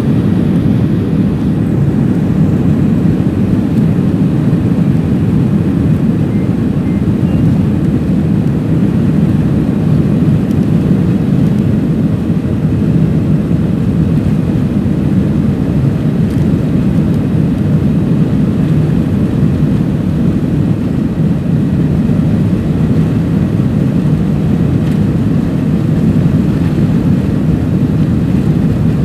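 Steady rumble of an airliner's engines and airframe heard from inside the passenger cabin, holding even throughout.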